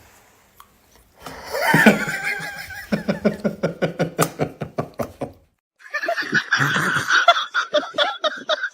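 People laughing in rapid 'ha-ha' pulses, starting about a second in. After a brief silence a second, higher-pitched bout of laughter follows.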